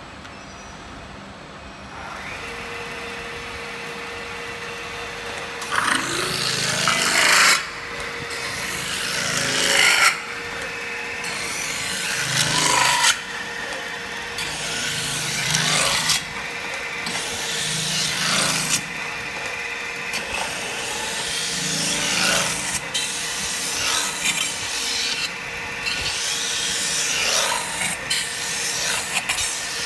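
CNC metal-spinning lathe forming a spinning sheet-metal disc with a roller tool. A steady motor whine starts about two seconds in, then the roller's repeated passes over the metal make a loud scraping rub, each swelling for a second or two before cutting off suddenly, about every two to three seconds.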